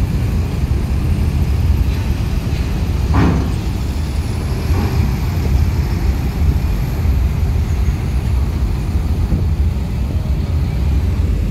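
Tour coach's engine running in a low, steady rumble as it drives slowly up the steel ramp into a ferry, with a brief sharper sound about three seconds in.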